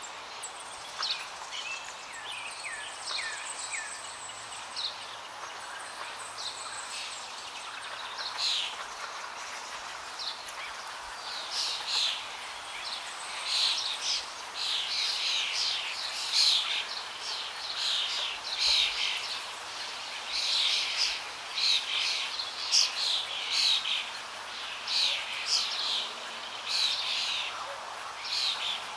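Songbirds chirping and singing in short, quick falling notes over a steady faint hush; the calls become louder and more frequent about ten seconds in.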